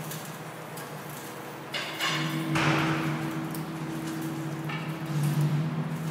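Experimental electronic noise music: a steady low drone hum, cut by a loud, harsh crash about two and a half seconds in that fades quickly, with shorter noisy scrapes just before it and again near the end.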